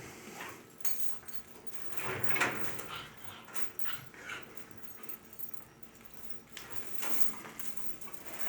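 Small dogs whimpering in short, irregular bursts.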